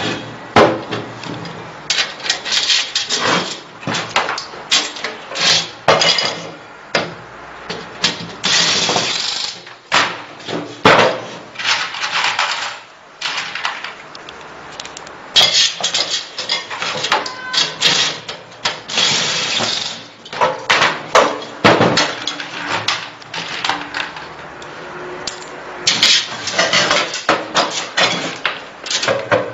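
Irregular clattering, knocking and scraping of hard parts being handled, with several noisy bursts lasting about a second each.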